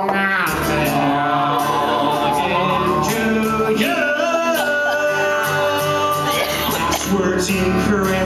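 Live music: acoustic guitar with male voices singing long held notes in a mock 1980s power ballad.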